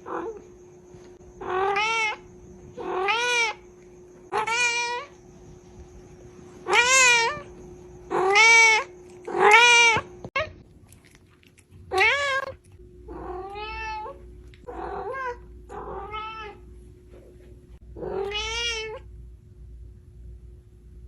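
Domestic cat meowing over and over: about a dozen meows, each rising then falling in pitch, with pauses of one to two seconds between them.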